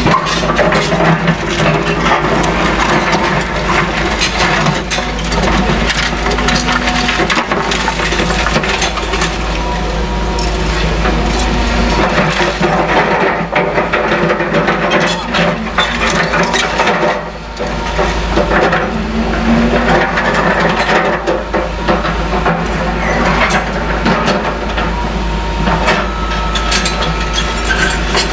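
Caterpillar excavator at demolition work: a steady low diesel drone under a continuous clatter of cracking, crunching and knocking as rubble and debris are broken and moved, with a short lull about two-thirds through.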